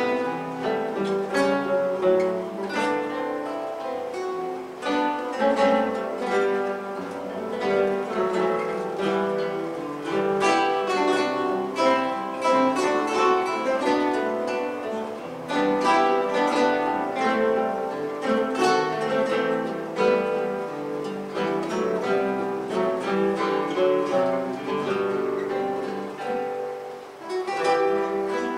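A large ensemble of classical guitars playing a piece together, many plucked notes sounding at once, with a brief lull near the end.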